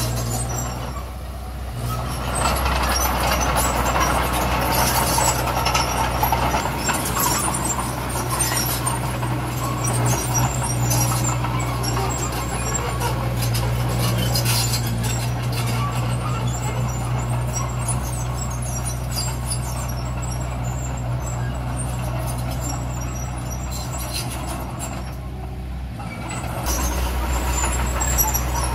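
Heavy diesel machinery running steadily with a low engine hum, with scattered metallic clanks and squeaks over it. The noise eases about a second in and again near the end.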